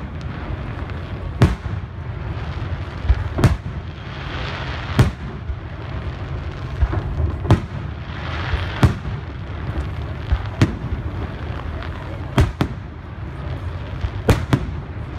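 Aerial firework shells bursting overhead: about ten sharp bangs at irregular intervals of a second or two, some in quick pairs, over a steady low rumble.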